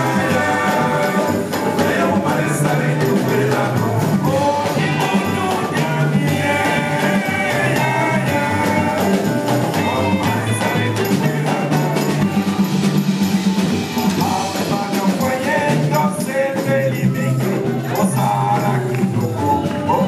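Live band music through a PA system, with guitar over a steady bass line and occasional singing.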